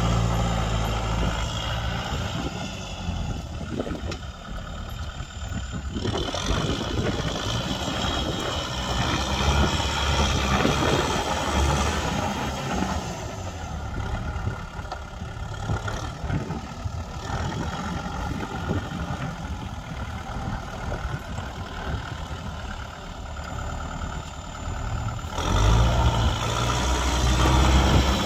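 Kubota tractor's diesel engine running under load while its rear rotary tiller churns through dry soil. The sound jumps abruptly about six seconds in and again near the end.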